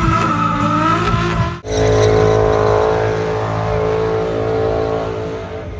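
Car engine held at high revs, its pitch wavering and then holding steady. It cuts off abruptly about a second and a half in and comes straight back at high revs, easing off slightly near the end.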